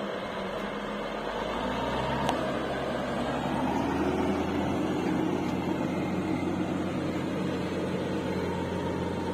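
Heavy diesel engine running steadily, a low hum that rises a little in pitch and level about a second and a half in, with one short click about two seconds in.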